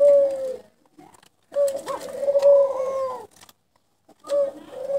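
Dove cooing in repeated low phrases. One coo ends just after the start, a longer one begins about a second and a half in and lasts nearly two seconds, and another begins near the end.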